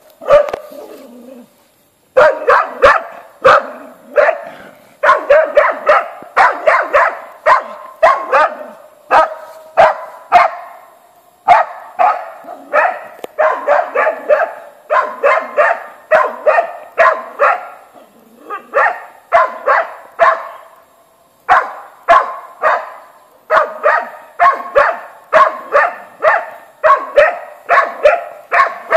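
Small hunting dog baying a wild boar: fast, high-pitched barks, two to three a second, in long runs broken by brief pauses.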